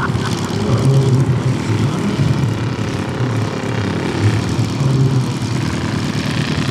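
RC scale Fokker D.V model's combustion engine running at a low idle as the biplane taxis, with an uneven low pulsing.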